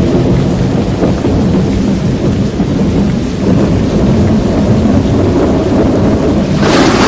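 Loud storm noise: a heavy low rumble with rain, typical of wind battering a microphone in a severe thunderstorm. About six and a half seconds in, a brighter hiss rises over it.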